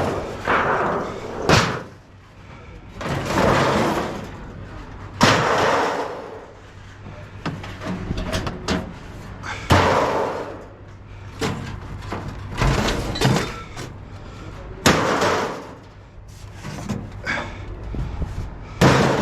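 Pieces of scrap metal thrown down onto a pile, each landing with a sharp crash and a short fading clatter, about every four to five seconds.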